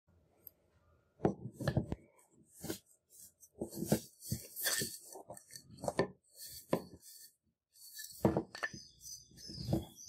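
Wooden knife handle scales handled on a wooden tabletop: a series of irregular knocks as the pieces are set down and knocked together, with rustling and scraping in between.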